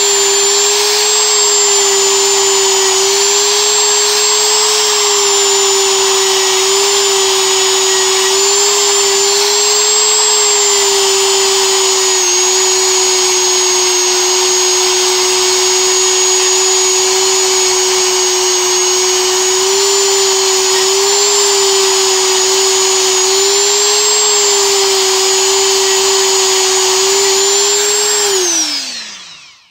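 Dremel rotary tool running at high speed with a steady whine that wavers slightly under load, its abrasive buffing wheel scrubbing rust off steel pliers. Near the end the motor is switched off and winds down with a falling whine.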